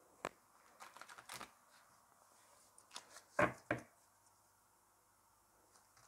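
A deck of angel oracle cards shuffled by hand: scattered crisp card clicks and short riffles, the loudest two close together about halfway through.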